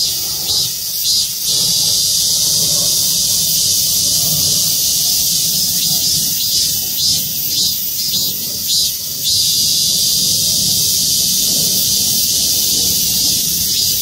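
A chorus of cicadas buzzing loudly and steadily in a high pitch, pulsing more quickly near the start and again in the middle.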